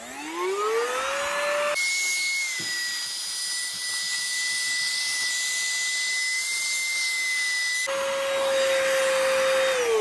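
Chuboor cordless handheld vacuum switched on and sucking cat hair from a rug. Its motor whine rises as it spins up, then runs steadily with a high, thin whistle through the middle. It winds down with a falling whine at the end as it is switched off.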